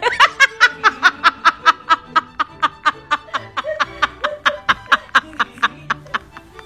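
Rapid snickering laughter: a long run of short, even 'he-he-he' pulses, about six a second.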